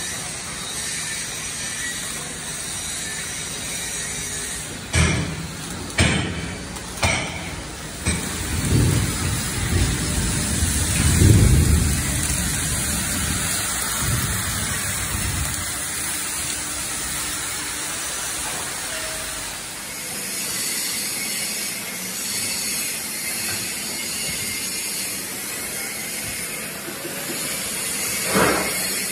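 Steel-fabrication workshop noise around a steel excavator bucket: a steady hiss throughout, with three sharp metal knocks about five, six and seven seconds in and a heavier low rumble from about eight to fifteen seconds in. The hiss fits arc welding on the bucket's steel frame.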